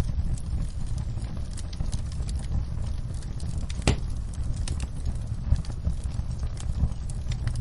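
Wood fire crackling: scattered small pops and snaps over a steady low rumble of the burning fire, with one sharper pop about four seconds in.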